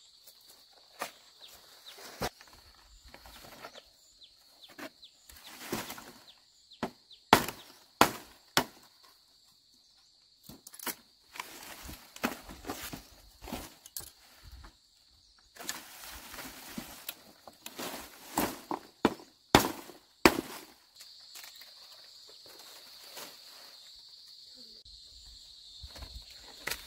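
Irregular sharp knocks and clatter, loudest twice in pairs, with rustling between them, over a steady high insect buzz.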